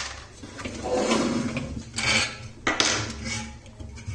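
Steel TV wall-mount bracket parts clinking and clattering as they are handled and bolted together, a sharp click at the start and several irregular metal clatters after it.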